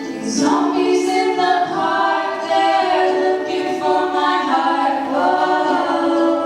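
A small group of voices singing a song in harmony, a cappella, with long held notes.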